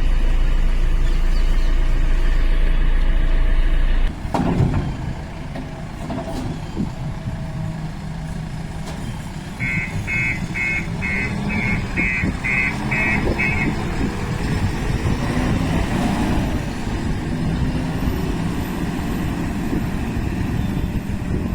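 Diesel engine of a JCB 3DX Plus backhoe loader running under way, with the reversing alarm beeping about twice a second for a few seconds near the middle. A steady low hum stops abruptly about four seconds in, followed by a knock.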